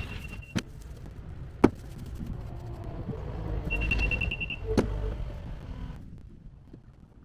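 A heavy machine's engine running with a low rumble that swells around four seconds in. A high steady tone sounds at the start and again briefly around four seconds in, and there are three sharp knocks or clanks.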